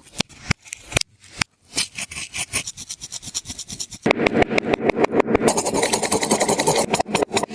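Hands working a taba squishy toy: a few sharp taps, then a fast, dense crackling that gets louder about four seconds in.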